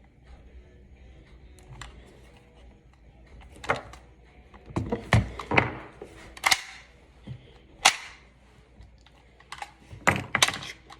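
Homemade toy pistol being worked by hand: a series of sharp, irregular clicks and clacks from its moving parts. They begin about three and a half seconds in and come closer together near the end.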